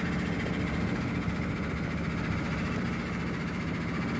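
Engine of a small river tour boat running steadily.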